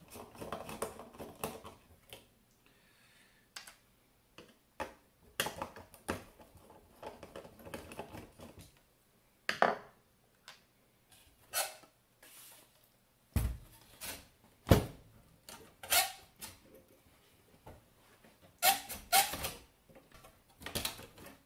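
Sheet-metal cover of an avionics transponder case being lifted off and fitted back by hand, giving irregular metallic clicks and rattles, with two dull knocks a little past halfway.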